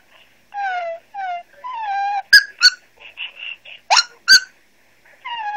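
A run of short, high-pitched dog-like whines, each under half a second with wavering pitch. Four sharp yips come in the middle, two close together about two seconds in and two more about four seconds in.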